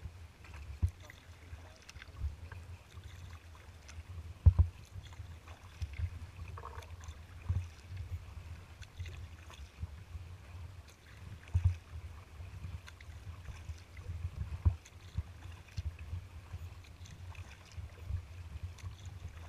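Water knocking against a moving kayak's hull, picked up through the deck as low thumps about every second and a half over a steady low rumble; the loudest knock comes about four and a half seconds in.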